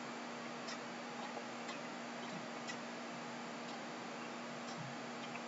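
Faint, regular ticking about once a second, over a steady low hum and hiss.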